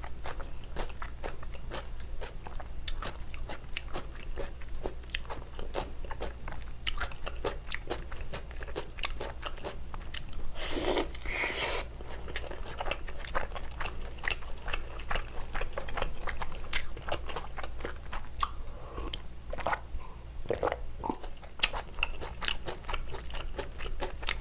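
Close-miked eating of meatball spaghetti in tomato sauce with cheese: wet chewing with many small lip and tongue clicks, and a louder slurp about eleven seconds in.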